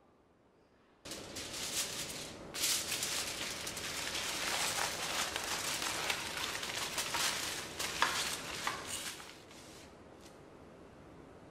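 Food sizzling in hot oil in a frying pan, starting suddenly about a second in with a dense crackling hiss, then dropping to a low hiss near the end.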